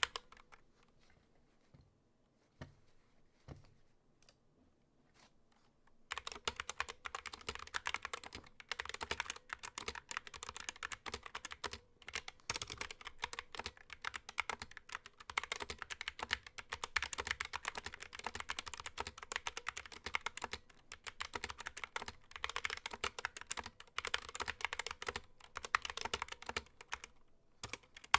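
Mechanical keyboard with Gateron Optical Yellow linear switches and rubber keycaps being typed on: a few scattered keypresses, then fast, continuous typing from about six seconds in.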